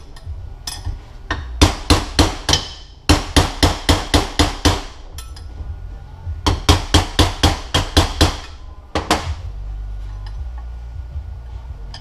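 Hammer striking a long punch to drive an old oil seal out of a MazdaSpeed 6 transfer case. The blows are sharp and come about five a second in three quick runs with short pauses between, then two last blows about three-quarters of the way through.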